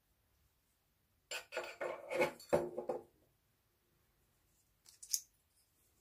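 A flip-top metal lighter being closed and set down on a wooden table: a quick cluster of metallic clacks and rattles about a second in, lasting under two seconds. A single sharp metal click follows near the end, from steel tweezers being handled.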